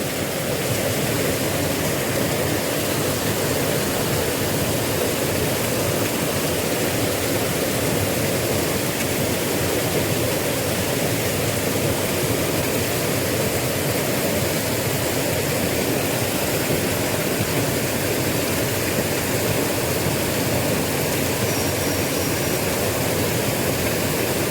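Small river flowing, a steady rush of water.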